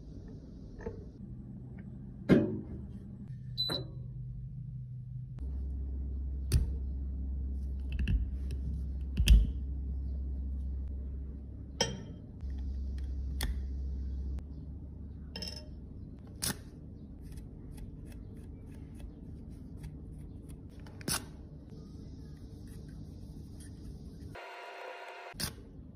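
Scattered light clicks and taps of metal tweezers and a spatula against glass beakers and a metal lipstick tube, about ten of them spread out. A low steady hum runs under them for about nine seconds in the middle.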